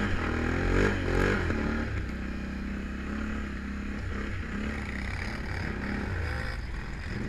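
Can-Am Renegade 1000 ATV's V-twin engine running under throttle while riding on snow: the revs climb in the first second or so, ease to a steadier lower pitch, then rise again near the end.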